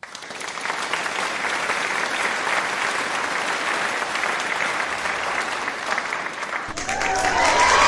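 A pot of tomato ramyeon broth boiling hard, a steady crackly bubbling as the noodles and egg are stirred. About a second before the end a different, louder sound with sliding pitched tones comes in.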